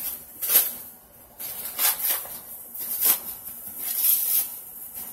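Plastic saran wrap crinkling as it is pulled and unwound off a tightly wrapped bundle, in crackling bursts about once a second.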